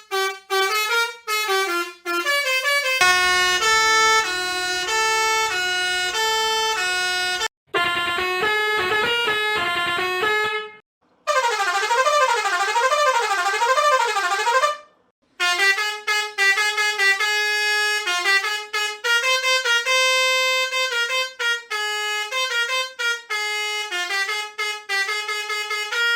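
A six-trumpet musical truck air horn, the Road Master RM-615, playing several of its preset tunes one after another with short breaks between them. There are strings of short separate notes, a two-note alternating tune and a fast run, both with a low rumble under them, and a tone that swoops up and down like a siren.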